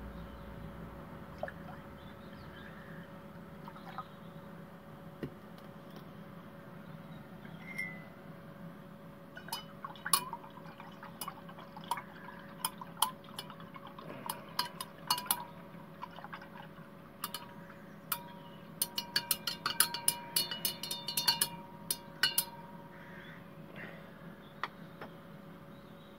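Liquid poured into a glass beaker, then a glass stirring rod clinking against the beaker's sides as the mixture is stirred: many quick, irregular, ringing clinks for about a dozen seconds. This is sodium metabisulfite solution going into gold chloride solution to precipitate the gold.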